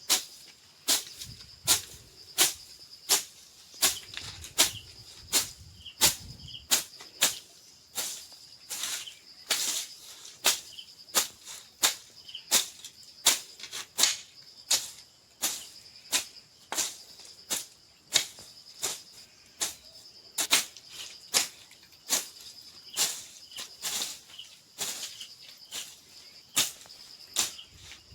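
Hand sickle (darati) swung again and again through wild weeds, a sharp swishing cut about every half second, over a steady high insect drone.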